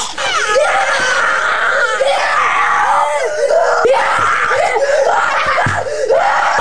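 A boy screaming in a few long, high-pitched screams with short breaks between them, a staged scream of pain and horror.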